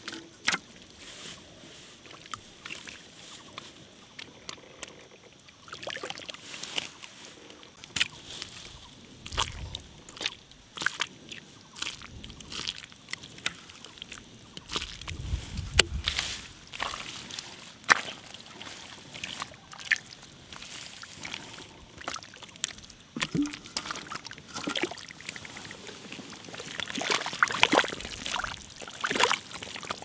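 Shallow muddy stream water sloshing and splashing irregularly as hands grope through it and the mud, with a few dull low thuds about a third and halfway through.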